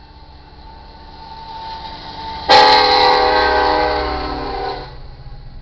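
Lead locomotive of a freight train, an EMD SD70ACe, sounding its air horn in one loud blast of about two seconds as it reaches the crossing, the chord sagging slightly in pitch before it cuts off. Before the horn, the approaching train's rumble grows louder.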